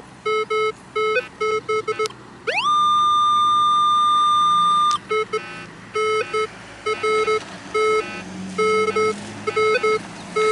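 Minelab Vanquish 540 metal detector giving repeated short, low-pitched beeps as the coil passes back and forth over a buried target reading about 9–10, which turns out to be aluminium foil. About two and a half seconds in, a higher tone glides up and holds steady for about two and a half seconds, then cuts off suddenly, and the short beeps start again.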